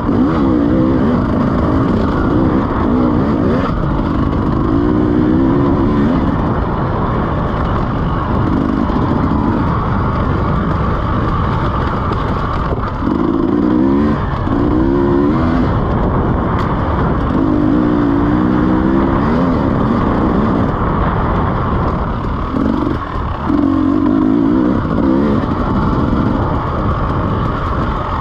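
2017 KTM 300 EXC's two-stroke single-cylinder engine being ridden, its revs climbing and dropping again and again as the throttle is opened and closed.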